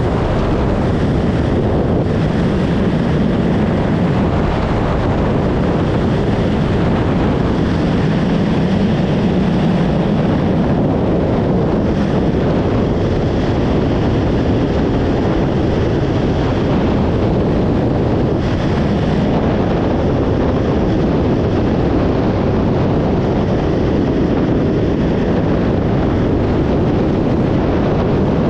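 Sea-Doo GTX Pro 130 personal watercraft running steadily at speed, its engine and jet drive mixed with the hiss of spray and heavy wind noise on the microphone.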